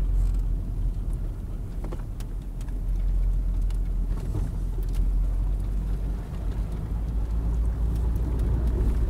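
Car driving on a slushy street, heard from inside the cabin: a steady low rumble of engine and tyres, with a few faint ticks.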